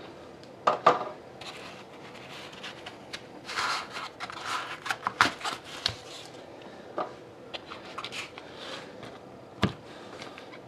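Hands unpacking a trading-card box: scraping and rubbing as the dark insert is worked out of the box, with a few sharp knocks about a second in and a louder knock near the end as the stack of cards is set down on the table.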